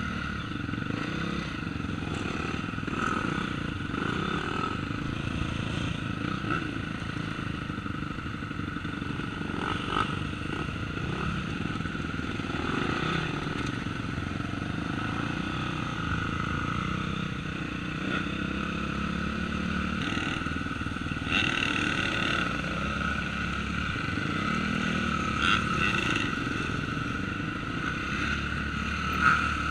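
Dirt bike engines running steadily at moderate revs, with small rises and falls in pitch, heard from a helmet-mounted camera. A few short knocks stand out about ten seconds in, past twenty seconds, and near the end.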